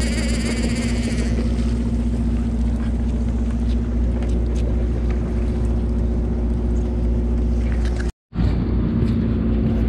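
Fishing boat's engine running steadily with a low drone and a constant hum. The sound cuts out briefly about eight seconds in.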